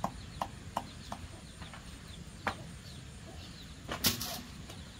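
Knife chopping leafy greens in quick regular strokes, about three a second, thinning out after the first second. Faint high chirps sound in the background, and a short loud rushing noise comes about four seconds in.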